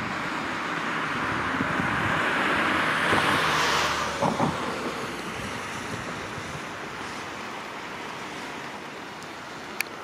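Steady rushing outdoor noise of flowing river water, with a louder rushing swell that builds over the first few seconds, peaks about three to four seconds in and then fades to a lower steady level. A single sharp click comes near the end.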